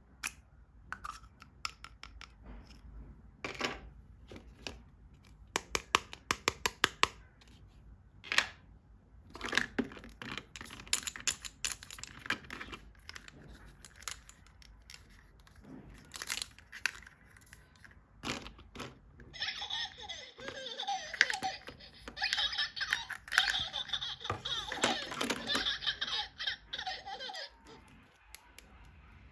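Crisp clicks and taps of plastic toys and packaging being handled and unpacked, then, about twenty seconds in, a sound-making toy plays a recorded giggling laugh for about eight seconds.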